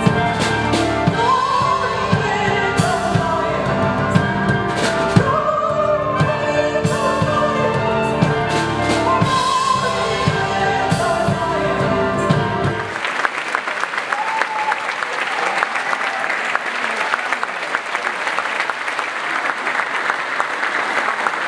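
A woman singing with a live band and percussion, the music stopping a little past halfway through. The audience then breaks into steady applause.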